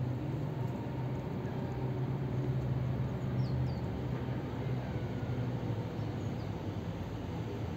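Steady low motor hum, with a few faint, short, high bird chirps over it.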